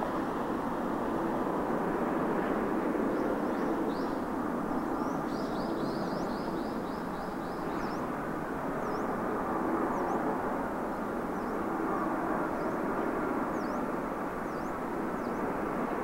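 Steady distant roar of an arriving Airbus A321 airliner's jet engines, with small birds chirping over it: a quick trill in the middle and scattered short chirps later.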